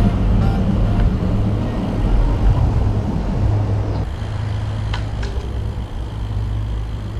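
Steady low rumble of wind and road noise on a handlebar-mounted action camera as a road bicycle rides along, with a couple of sharp clicks about five seconds in.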